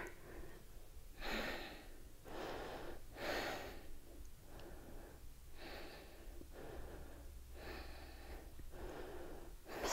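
A woman breathing audibly while holding a standing yoga pose: a slow series of soft, hissing in- and out-breaths, roughly one a second.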